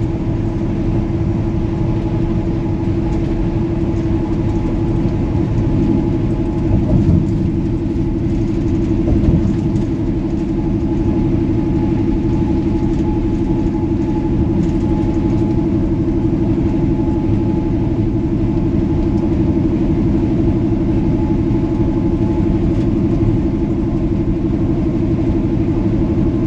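Semi truck's diesel engine droning steadily at highway cruising speed, heard from inside the cab, with a constant low rumble of road noise underneath.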